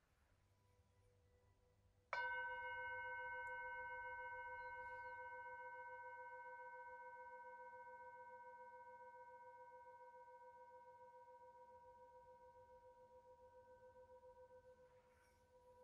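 Metal singing bowl struck once about two seconds in, then ringing out with several clear steady tones that fade slowly with a gentle pulsing waver.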